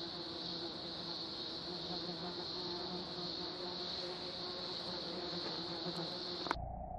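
A steady, high-pitched outdoor insect chorus, with a few fainter steady lower tones under it. About six and a half seconds in it cuts off abruptly with a click, and a duller, lower steady hiss takes over.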